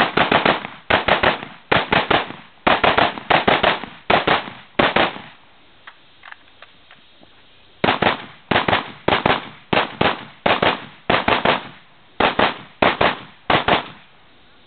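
Open-class semi-automatic rifle fired in fast strings of two to four shots. The strings stop for about two and a half seconds in the middle, where a few faint clicks are heard, then start again.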